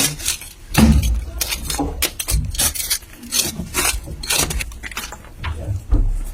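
Irregular clatter of hard objects being handled and moved: a busy run of clicks, knocks and scrapes, with heavier thumps about a second in, midway, and near the end.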